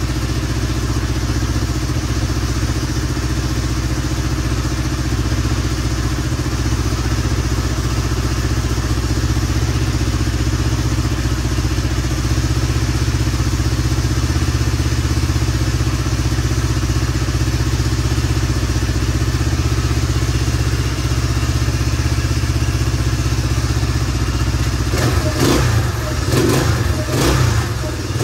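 Honda XL175's single-cylinder four-stroke engine idling steadily, its top end freshly rebuilt with a new camshaft, then revved in a few short blips of the throttle near the end.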